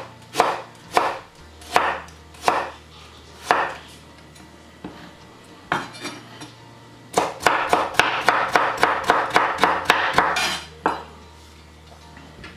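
Chef's knife cutting peeled ginger root on a bamboo cutting board: single slicing strokes tapping the board every half second or so, then after a pause a fast run of about four or five chops a second for several seconds as the stacked slices are cut into thin matchsticks (julienne).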